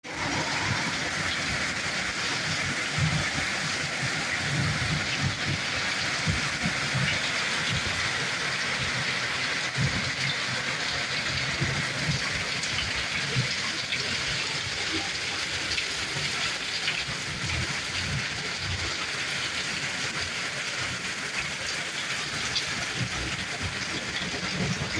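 Heavy rain falling steadily: a dense, even hiss of drops with irregular low thuds throughout.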